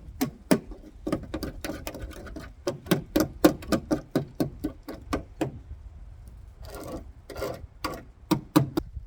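A run of sharp, irregular knocks and taps, about two to four a second, from hand work on an old car's steel body, with two short scraping sounds about seven seconds in.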